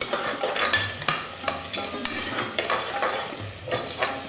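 Sliced onions frying in oil and ghee in a pressure cooker, sizzling steadily, while a metal ladle stirs and scrapes against the pot in irregular strokes. The onions have just gone into the hot fat with whole spices and green chillies.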